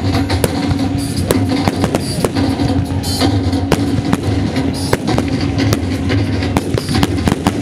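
Loud music with a heavy steady bass, with many sharp, irregular firework bangs and crackles going off throughout.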